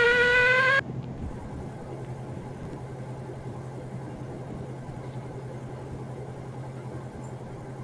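Cordless drill whining, its pitch rising steadily, cut off abruptly under a second in. After it a much quieter low, steady hum with faint background noise.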